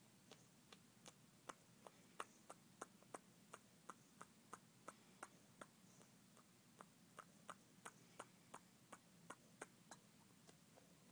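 A dog's quiet, repeated lip smacking: short wet clicks of the mouth and tongue at about three a second, kept up steadily. The smacking is what the owner believes is a focal seizure.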